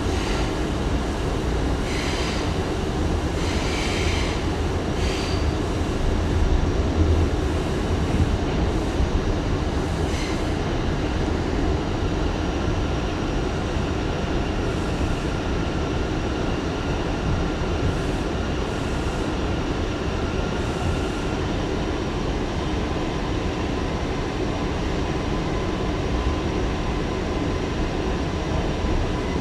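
R179 subway train running at steady speed: a continuous rumble of wheels on rail with faint steady tones above it. Short high squeals from the wheels on the rails come about two and four seconds in, and again near ten seconds.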